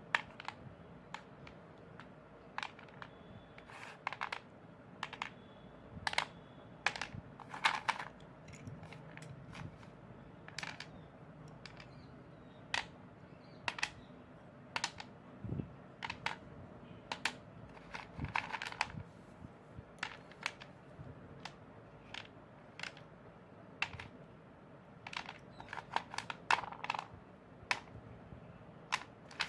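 Slate pencils being bitten and crunched: short, sharp, brittle crunches at an irregular pace, about one every second or two, some in quick pairs.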